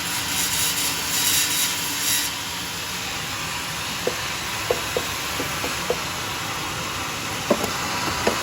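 Homemade sawmill running with its blade cutting a durian log, a steady mechanical noise that hisses louder for the first two seconds. Several short sharp ticks follow in the second half.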